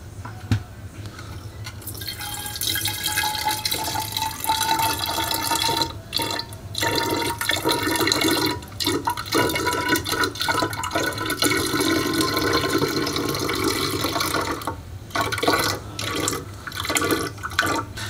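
Ginger beer poured from a plastic jug into a glass swing-top bottle, splashing and gurgling as it fills, with a faint tone that rises as the bottle fills. A light knock comes just after the start, and the pour breaks off briefly a few times.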